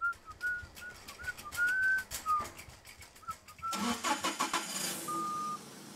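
Cartoon forklift engine sound effect: irregular clicking under wavering, whistle-like high notes, then about three and a half seconds in a sudden rush of engine noise as it starts up. It ends in a short, steady beep.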